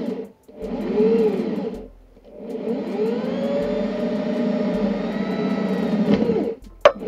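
Hand-held electric drill boring a hole through a plywood board: the trigger is squeezed in two short bursts, the motor's pitch rising and falling with each, then held for a longer run of about four seconds as the bit cuts through the wood. A sharp click near the end.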